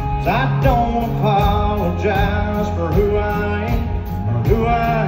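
Live country band playing, with a male lead vocal singing into the microphone.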